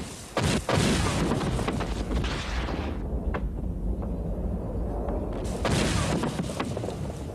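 Rocket fire. A sudden blast about half a second in is followed by a rushing noise for a couple of seconds, then a low rumble, then another rushing blast about six seconds in.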